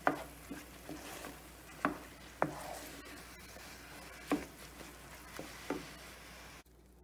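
A wooden spatula stirring thick rava pongal in a nonstick pan: several sharp knocks and scrapes of the spatula against the pan as the porridge thickens. The sound cuts off abruptly near the end.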